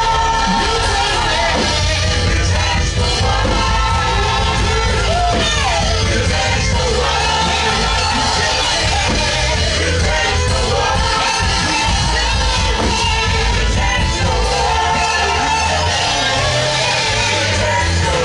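Live worship music from a band with a strong bass, with singing and shouts over it.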